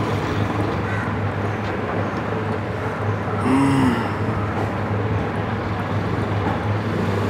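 A metal sewing machine needle plate being scraped with a flat abrasive tool to smooth a scratch in its needle slot, over a steady background hum like traffic. A short falling tone comes about three and a half seconds in.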